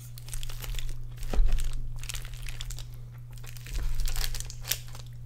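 Aluminium foil tray crinkling as a wooden fork digs through loaded fries, in irregular short crackles, the loudest about a second and a half in.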